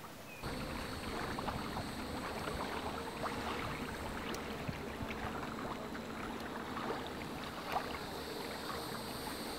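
Water lapping and splashing against the hull of a tandem kayak as it sails through a light chop: an even wash sprinkled with many small splashes, starting up about half a second in.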